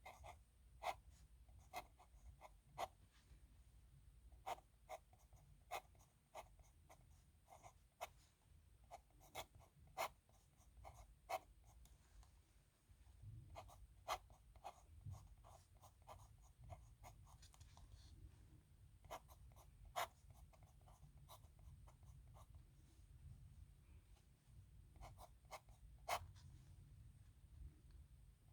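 Dip nib pen scratching across paper in short, irregular strokes as handwritten characters are written, faint over a low steady hum.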